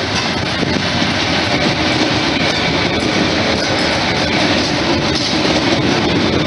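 ЭП2Д electric multiple unit passing close by, its wheels rumbling steadily on the rails, with scattered clicks of the wheels over the rail joints.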